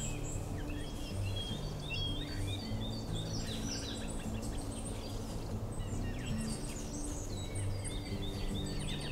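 Many small birds chirping and calling, quick short notes and brief rising and falling whistles, over soft background music of slow, sustained low notes.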